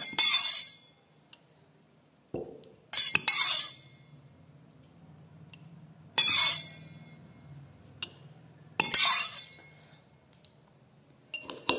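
Metal spoon clinking against a drinking glass while stirring wet rice, in short bursts of sharp clinks with brief ringing, a few seconds apart.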